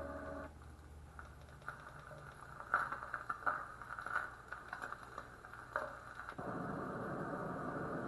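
Casecube white noise machine being switched between its sounds: several short clicks of its top buttons over faint playback, then about six seconds in a steady hiss-like white noise sound starts from its small speaker.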